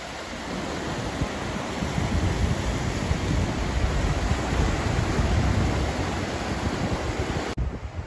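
Small waves washing in over a dark lava-rock shoreline, with wind rumbling on the microphone. The sound cuts off abruptly shortly before the end.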